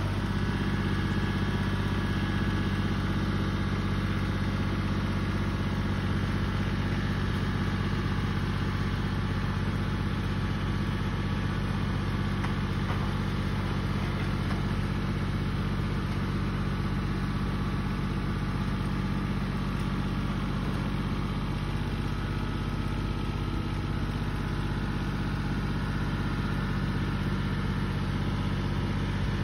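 John Deere compact tractor's engine running steadily at an even speed.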